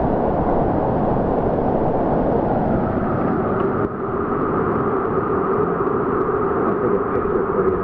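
Steady rushing of a small mountain river's flowing water, an even, unbroken noise.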